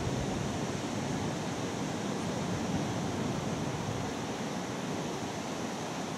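Steady outdoor noise of wind on the microphone, a fluctuating low rumble under an even hiss.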